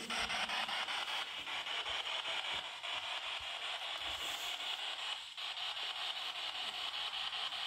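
Spirit box scanning radio stations, giving a steady hiss of white noise with a rapid, regular chop as it sweeps.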